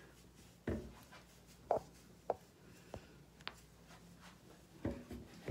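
Quiet handling sounds from a cotton ball rubbed on the face and a plastic bottle held in the hand: soft scratchy rubbing and a handful of light, separate taps.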